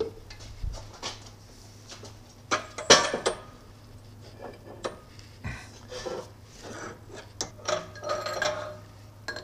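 Steel clanking and clinking as a lathe spindle with its bull gear is set onto the steel plates of a bearing press and the press ram is adjusted. The loudest clank comes about three seconds in, with lighter knocks later.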